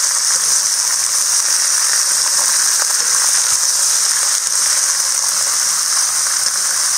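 Raw potato sticks sizzling steadily in hot oil in a kadai as they are stirred with a metal ladle, with faint scrapes and ticks of the ladle against the pan.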